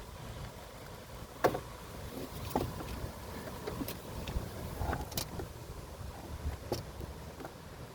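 Scattered light clicks and knocks of hands working hoses and fittings in an engine bay, the sharpest about a second and a half in, over a steady low rumble.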